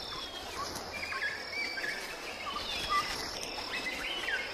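Rainforest ambience: a steady high insect drone with many short bird chirps and whistles scattered throughout.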